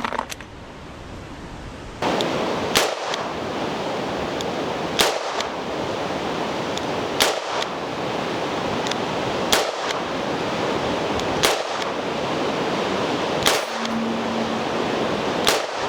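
Seven gunshots from a Ruger GP100 seven-shot revolver firing .38 Special, evenly spaced about two seconds apart, emptying the cylinder. A steady hiss of wind noise on the microphone runs under them.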